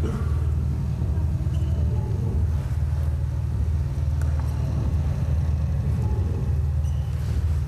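A steady, deep rumbling drone, with faint scattered ticks and rustles above it.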